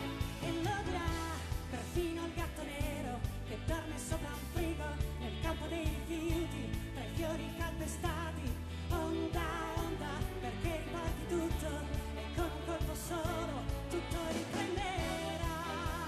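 Live pop song: a woman singing with vibrato over a band and string orchestra, with drums keeping a steady beat.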